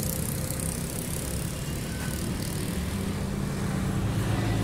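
A motor running steadily with a low hum, its tone shifting about three seconds in.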